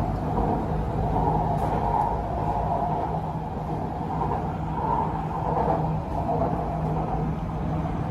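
Metro train running between stations, heard from inside the carriage: a steady rumble of wheels and running gear, with a low hum that fades in and out.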